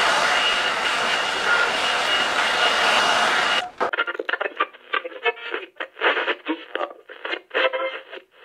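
Handheld hot-air blower running steadily with a faint high whistle, warming vinyl wrap film so it can be stretched over the fairing; it cuts off abruptly about three and a half seconds in. After that, a thin, tinny-sounding voice follows.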